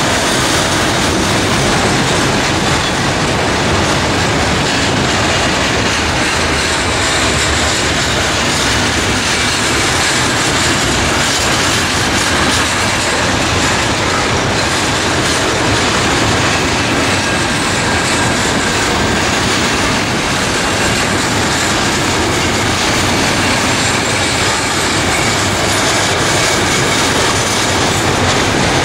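Container freight train's wagons rolling past close by at a steady speed: a loud, even rolling noise of steel wheels on the rails that holds constant throughout.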